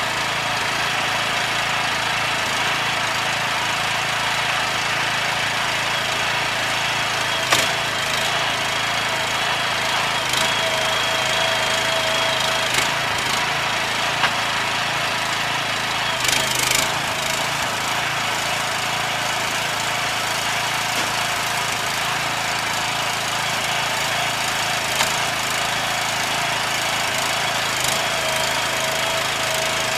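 A machine's motor running steadily, with a few sharp knocks and a thin whine that comes and goes.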